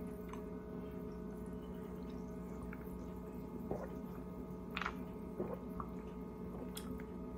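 Faint sipping and swallowing from a glass mug, a few soft gulps about four to six seconds in, over a steady low electrical hum.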